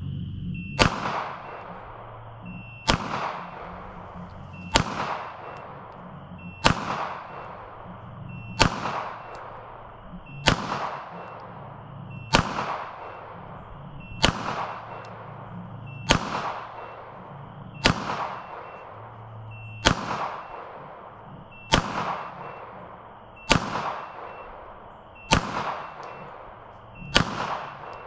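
Sig Sauer P320 pistol firing single shots at a steady pace, about one every two seconds, fifteen in all, each followed by a short echo. It is a paced drill: one aimed shot on each beep of a shot timer.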